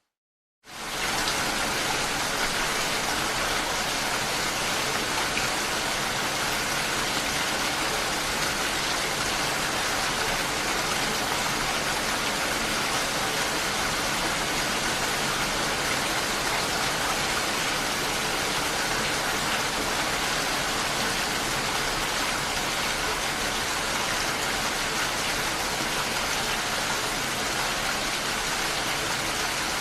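Steady, even rain hiss for relaxation, coming back in about half a second after a brief silence at the start.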